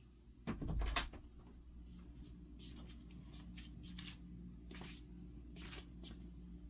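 A dull bump with a sharp knock about a second in, then light scattered clicks and rustles over a low steady hum.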